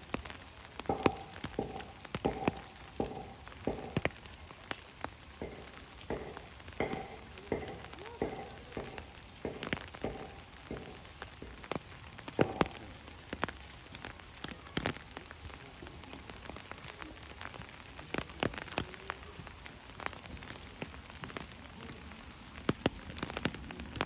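Steady rain, with heavy drops striking a hard surface close by in irregular sharp taps. Over the first ten seconds or so, a run of short pitched plinks comes about two a second.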